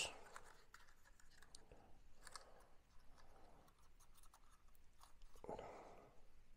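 Near silence with faint, scattered light clicks and rustles of a small plastic drone being handled and folded in the hands.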